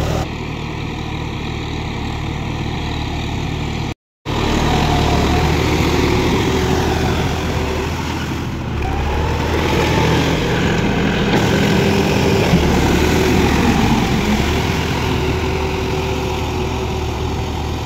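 John Deere 5310's three-cylinder diesel engine running steadily under load as the tractor drives a rotavator through flooded paddy mud. The sound cuts out completely for a moment about four seconds in.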